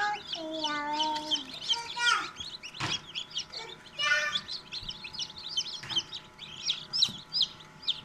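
A crowd of newly hatched chicken chicks peeping without a break, many short, shrill chirps overlapping.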